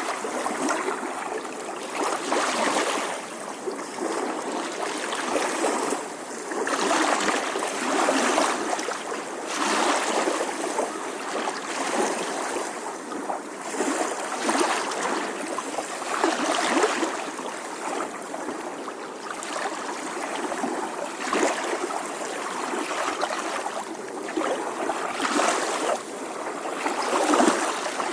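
Small ocean waves lapping gently on a shore, each wash swelling and easing every two seconds or so.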